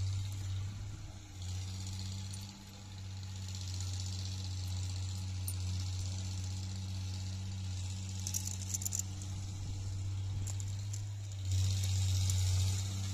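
A steady low machine hum, with a brief run of light metallic clicks about eight seconds in as steel pistons are handled against the hydraulic pump's cylinder block.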